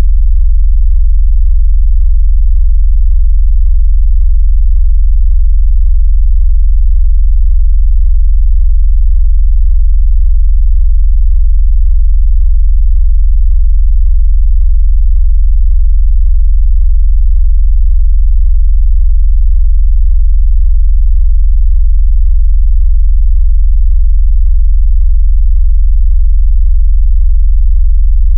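Loud, steady, very deep synthetic bass tone with a fast flutter, a 'vibration' sound made to shake a phone and push water out of its speaker.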